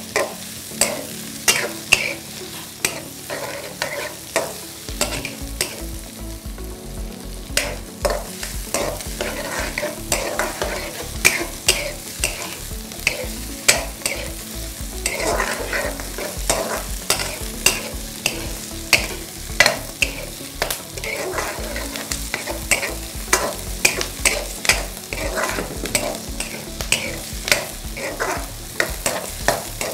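Chopped vegetables (onions, green beans, bell peppers) sizzling as they stir-fry in an oiled nonstick wok. A plastic spatula scrapes and taps the pan in repeated strokes, one or two a second.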